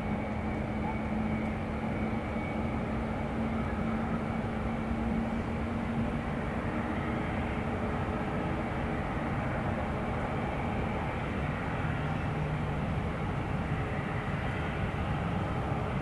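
Steady low rumble with faint humming tones; one low hum fades out about a third of the way through and others come and go.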